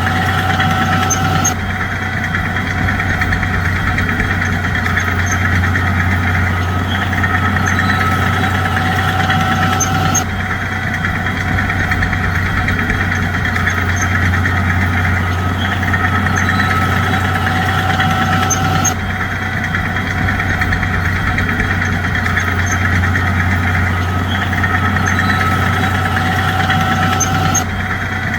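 Bulldozer's diesel engine running steadily with a low drone, the sound changing abruptly about every 8 to 9 seconds as the same stretch repeats.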